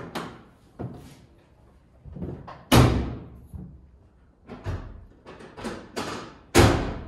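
Irregular knocks and clunks of tools and parts being put down and moved while a workshop is cleared up, echoing in the room, with the two loudest bangs about three seconds in and near the end.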